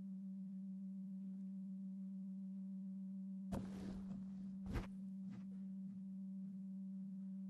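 A steady low hum with faint overtones runs underneath. About halfway through there is a brief rustle, then a sharp knock, the loudest sound, followed by a faint tick.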